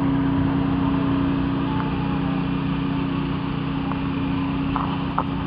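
A vehicle engine running steadily, a constant low hum that holds one pitch, with a few faint ticks near the end.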